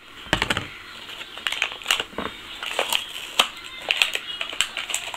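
Clear plastic packaging bag crinkling in irregular crackles as a child's hands pull and tear it open.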